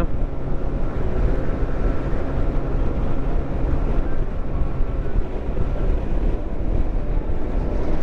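Motorcycle engine running steadily while riding, mixed with road noise and wind rumbling on the microphone.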